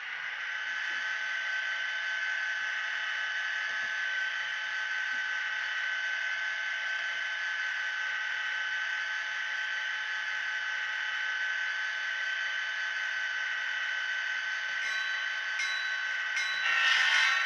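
ESU LokSound sound decoder in an N scale Intermountain EMD SD40-2 model, playing the locomotive's diesel prime mover idling as a steady hum with a high whine through the model's small speaker. Near the end a few evenly spaced strikes and then louder signal sounds join in.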